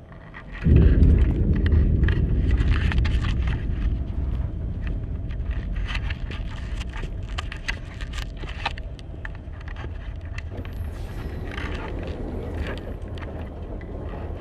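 A deep rumble that starts suddenly about a second in, with dense crackling over it, slowly fading.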